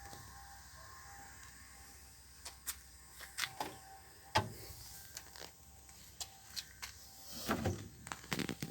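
A refrigerator being handled: a run of irregular clicks and knocks, like its doors, shelves and fittings being moved, with the sharpest knock about four seconds in and a quick cluster of knocks and a scrape near the end.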